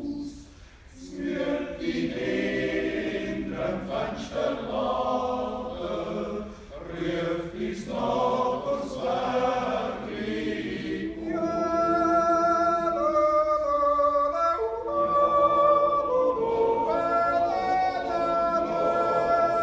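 Swiss yodel choir of men's voices singing a cappella: a verse of short sung syllables, then, about 11 seconds in, long held chords with a higher voice line above them, typical of the yodel refrain of a Jodellied.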